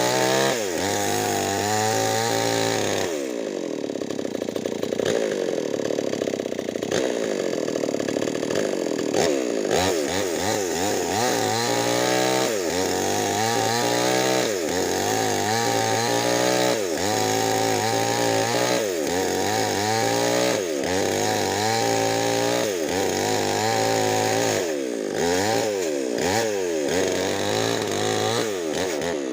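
Nixon chainsaw with a 25-inch bar ripping lengthwise through Medang timber. The engine holds a long steady pull under load from about three to nine seconds in, then its pitch repeatedly sags as it bogs into the cut and climbs back, about once a second.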